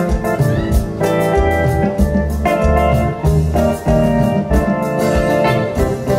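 Instrumental music: an electric guitar played over keyboard chords, bass and a steady drum beat.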